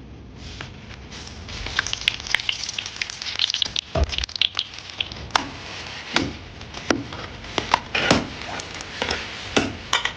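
Cooking noises: a crackling hiss with irregular sharp clicks and several dull knocks.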